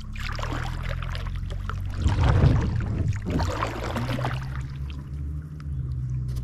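Water splashing and sloshing around a river kayak as it gets under way, with a steady low hum underneath.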